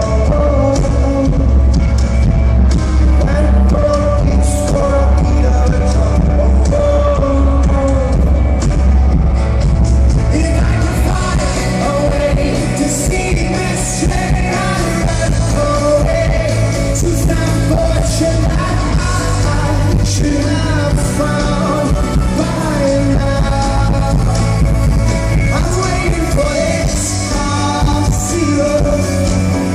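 Rock band playing live, with a male lead vocalist singing over guitars, bass and drums. About ten seconds in the sound gets brighter and fuller.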